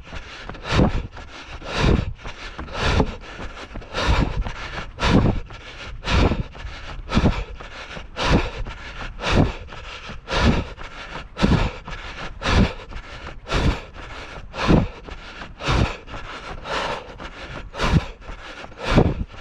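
A runner's footfalls on a dirt trail at a steady jogging pace: about two thuds a second, alternating louder and softer, with scraping between them.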